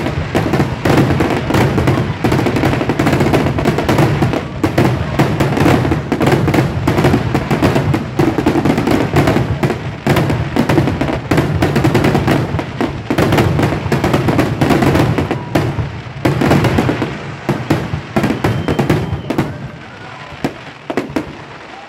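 Dense fireworks barrage: aerial shells bursting in quick, overlapping bangs with crackling, thinning out and getting quieter over the last few seconds.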